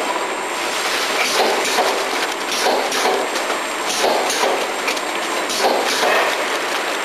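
Model 140 cartoning machine and its infeed conveyor running: a steady mechanical clatter with sharp clicks and a heavier surge that repeats about every one and a half seconds as the machine cycles.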